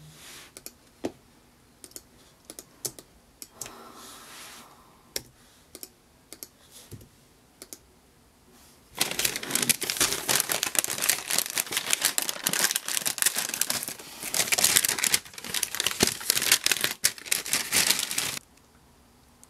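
Scattered computer keyboard keystrokes, then a kraft paper bag being unfolded and opened by hand: loud crinkling and rustling of stiff paper for about nine seconds, stopping near the end.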